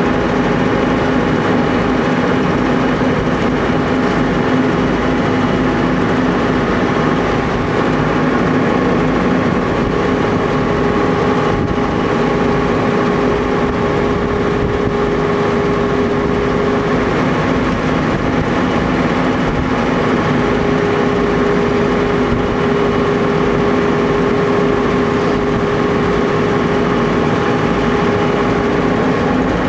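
Tour boat's engine running steadily, loud from the back of the boat, with a higher steady whine that comes in twice and drops out.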